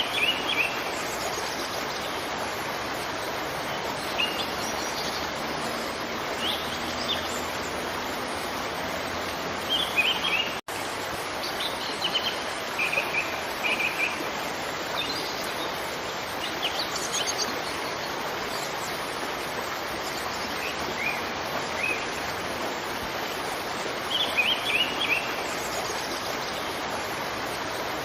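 Steady rush of a waterfall, with songbirds chirping in short runs of quick notes every few seconds. The sound cuts out for an instant about ten seconds in.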